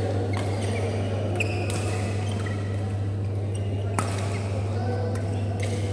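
Badminton rally: rackets hitting the shuttlecock as sharp clicks, the loudest about four seconds in, with short squeaks of court shoes on the mat, over a steady low hum in a large hall.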